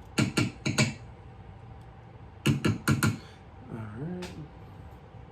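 Sharp clicks of hardware being handled on a bass guitar body, in two quick runs of about four, then a short hummed voice sound that dips and rises in pitch.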